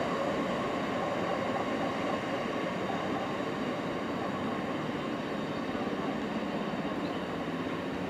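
A freight train's wagons rolling away along the track: a steady rumble of wheels on rail with a faint whine over it, slowly fading.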